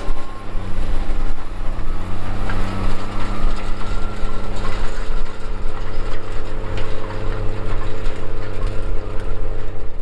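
Case IH tractor's diesel engine running steadily under load while pulling a field cultivator through dry soil.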